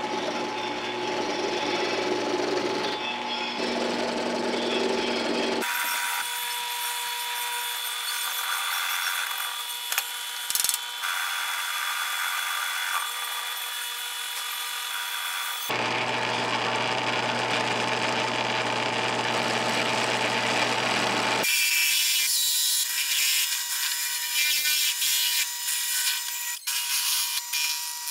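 Benchtop drill press running and boring into a small wooden block: a steady motor whine with the noise of the bit cutting wood. The sound changes abruptly three times.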